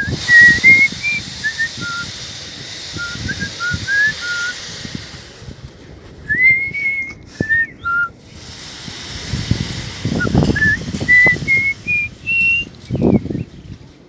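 A person whistling through pursed lips: a string of short, clear notes that step up and down, with a run of rising notes near the end. Low rumbling noise bursts come in the second half.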